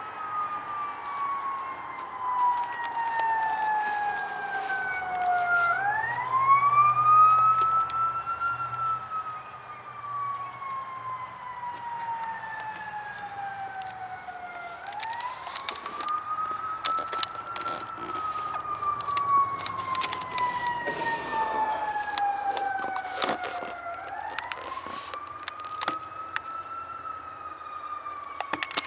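A siren wailing in a slow rise and fall: the pitch climbs quickly and then sinks slowly over several seconds, about three times. Scattered clicks can be heard over it.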